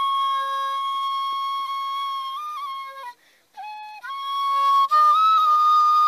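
Bansuri (bamboo side-blown flute) playing a slow melody of long held notes. About three seconds in the tone drops away for a moment and a short lower note sounds, then the melody picks up again and swells louder near the end.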